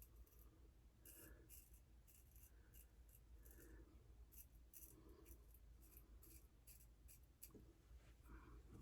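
Faint short scraping strokes of a straight razor cutting through whiskers on lathered skin, roughly two strokes a second.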